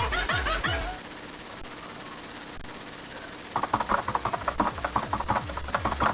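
Electronic music: short pitched, sliding samples over falling bass kicks, then a quieter gap, then a fast rhythmic section of sharp hits with bass that starts about three and a half seconds in.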